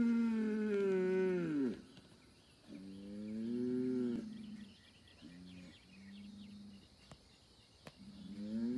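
Young Angus bull bellowing: a long call that ends about two seconds in, a second full call a second later, two short quieter calls, and another long call starting near the end.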